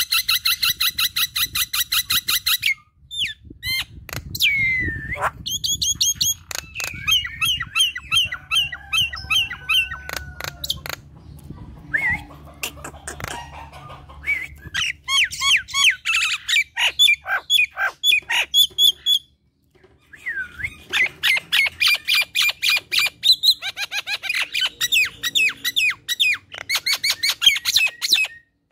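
Common myna (jalak nias) singing in full chatter: long runs of rapid, harsh repeated notes mixed with short whistles, with a short break about two-thirds of the way through.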